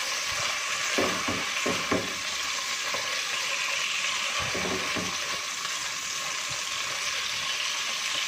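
Boneless chicken strips frying in oil in a nonstick pot, a steady sizzle, stirred now and then with a silicone spatula that scrapes the pan a few times in the first half. The chicken is being seared until it turns colour.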